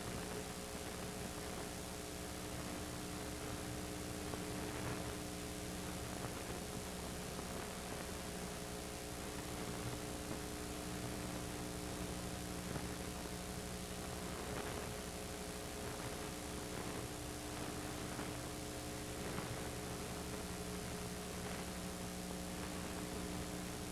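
Steady electrical mains hum with a background hiss and no film soundtrack: the film's audio is missing in this stretch of the transfer.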